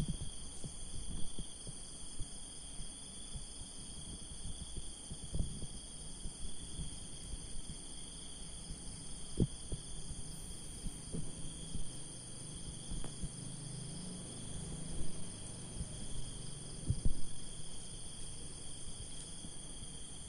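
A steady high-pitched drone of several whining tones, like an insect chorus or electrical whine, under scattered soft bumps and knocks from the phone being handled, the sharpest about halfway through and again near the end.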